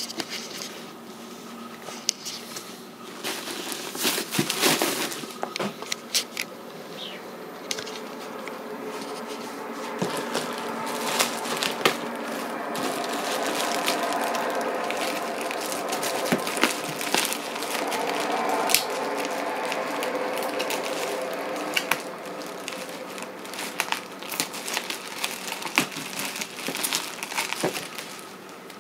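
Clear plastic wrap crinkling and rustling as hands handle it and scissors cut it open, with many sharp crackles and snips throughout.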